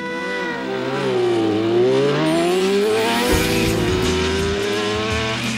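An engine revving, its pitch dipping and then climbing. Music with a low bass line joins in about three seconds in.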